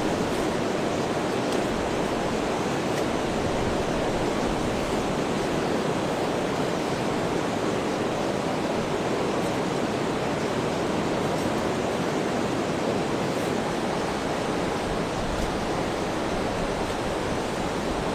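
Heavy rain falling steadily: an even, unbroken rushing hiss, with a few faint ticks of drops here and there.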